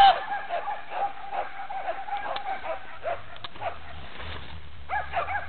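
A dog barking in a rapid string of short, high yaps, several a second. A loud bark comes at the start, the barking pauses in the second half, and it picks up again near the end.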